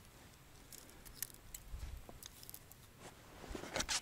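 Faint handling sounds of ice-fishing tackle: small clicks and rustles as fishing line and a homemade plastic tip-up with its reel are handled over the ice hole, with a soft thump a little before two seconds in and a louder cluster of clicks near the end.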